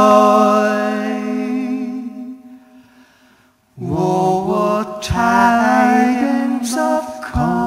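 Two male voices with acoustic guitar hold a long sung note that fades away; after a brief gap a little past the middle, the singing and guitar start again.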